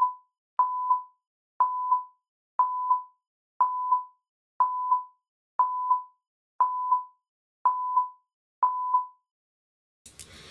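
Countdown sound effect: a short mid-pitched beep with a click once a second, about ten times, each followed by a fainter tick. The beeps stop about nine seconds in.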